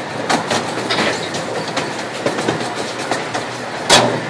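Wheels of a small open-car passenger train clicking rhythmically over rail joints, heard from aboard, over a steady running rumble, with one louder clack about four seconds in.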